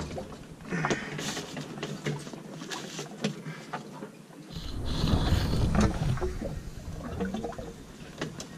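Light clicks and knocks of hands working dough in a plastic bowl and setting rolls into a metal cooking pot. A low rumble swells in the middle and fades again.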